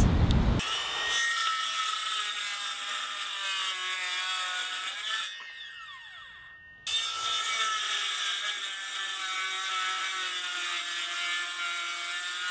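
Circular saw cutting through a piece of 3/4-inch marine plywood, a steady high whine. It winds down a little after five seconds in, then comes back abruptly, cutting again, about seven seconds in.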